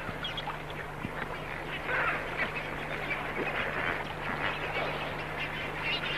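A flock of flamingos calling: a dense, continuous chatter of many short, overlapping calls.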